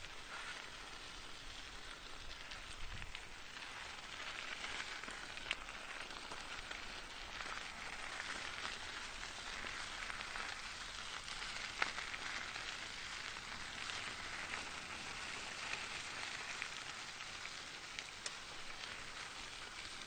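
Bicycle tyres rolling over gravel: a steady crunching hiss with a few sharp clicks of stones now and then.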